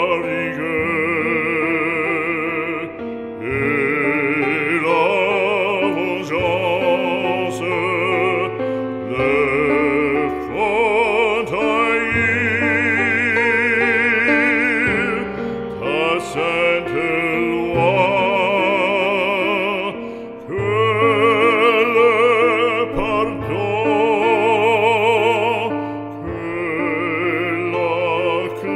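Operatic singing with a wide vibrato over sustained instrumental accompaniment, in long held phrases with brief breaths between them.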